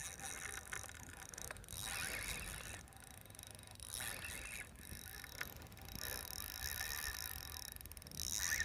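Fishing reel being cranked in several short bursts, a faint fine whirring tick, while a hooked fish is reeled in on a bent rod.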